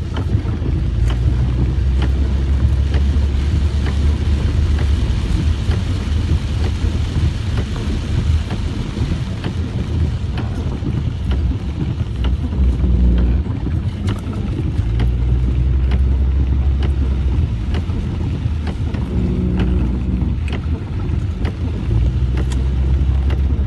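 Low rumble of a car driving, with wind buffeting the microphone and scattered light ticks and knocks.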